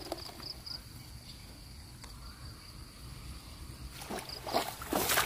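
Quiet outdoor ambience with a faint high steady tone and a few short high chirps in the first second. About four seconds in, a run of louder rustling and splashing begins.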